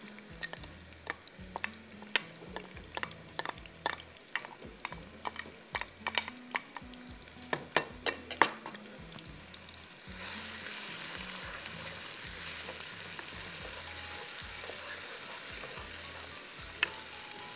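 Chopped onions frying in hot oil in a pot, with a spoon clicking and scraping against the pot as they are stirred. About ten seconds in, the clicks stop and a steady sizzle takes over.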